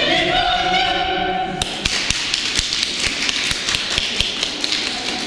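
A choir's unaccompanied singing ends about a second and a half in, and audience applause follows.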